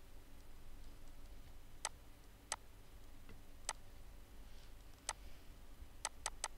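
Computer mouse clicking: about seven short, sharp clicks spaced irregularly, with three in quick succession near the end, over a faint low hum.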